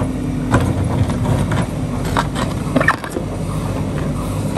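JCB backhoe loader's diesel engine running steadily while its bucket digs into rocky riverbed soil, with stones knocking and scraping against the steel bucket several times.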